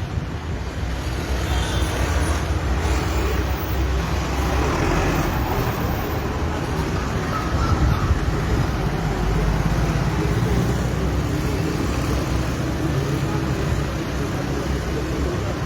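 Steady road traffic noise: motor vehicles running on a road.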